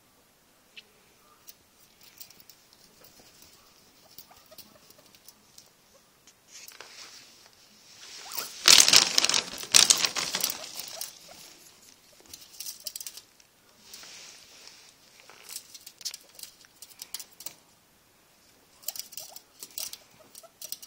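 Guinea pigs scrabbling and rustling about in wood-shaving bedding. Near the middle comes a loud stretch of scratching and rubbing, about two seconds long, as one scrambles right up against the microphone.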